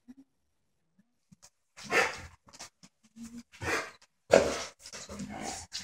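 A dog barking, a series of short barks starting about two seconds in, the loudest just past the middle.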